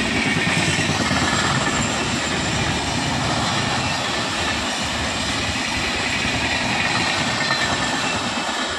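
Express train passenger coaches rushing past at speed: a steady, dense rumble and rush of wheels on rail.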